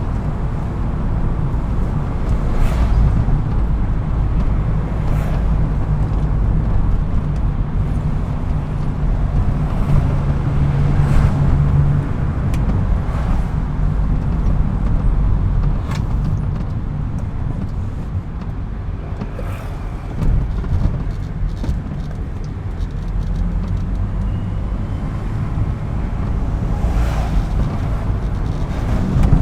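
BMW E36 M3's straight-six engine running as the car drives, with steady road noise.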